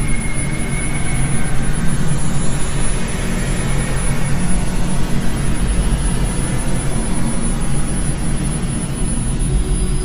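Loud, steady rumbling drone with a dense hiss over it, and faint high tones drifting in and out.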